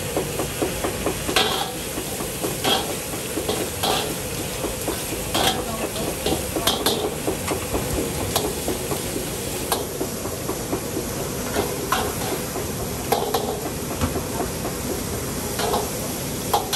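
Wok stir-frying: a metal ladle scraping and clanking against the wok every second or so over a steady sizzling hiss.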